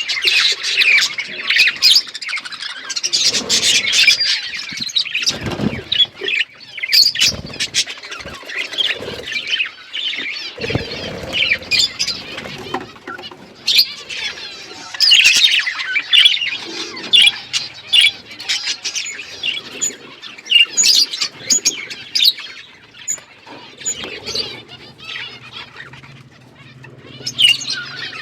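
A flock of budgerigars chirping and chattering continuously, many birds at once, with a few low thumps about a quarter and a third of the way through.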